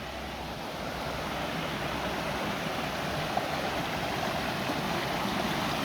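A small waterfall, with water pouring and rushing steadily, growing slightly louder over the few seconds.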